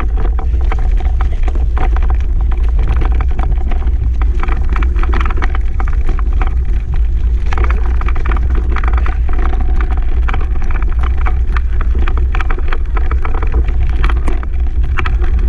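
Steady low rumble on the camera microphone, with constant irregular rattling and knocks from moving fast over a rough forest trail.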